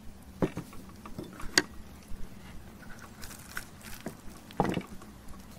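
A raw tomahawk ribeye being handled on a wooden cutting board: scattered light knocks and clicks, with a heavier thud of the meat against the board about four and a half seconds in, over a faint steady hum.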